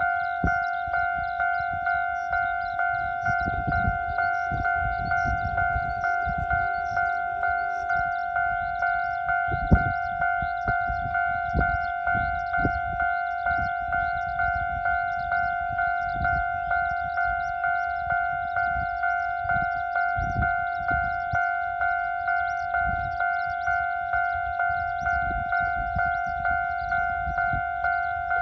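Japanese railway level-crossing warning bell ringing over and over at one even pitch, the sign that the crossing is closed for an approaching train. There is a single sharp knock about ten seconds in, with low rumbling at times underneath.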